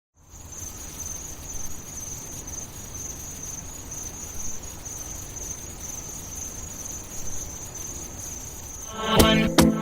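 Crickets chirping in a steady, high-pitched trill over a low hum. About nine seconds in, music cuts in with sharp percussive hits.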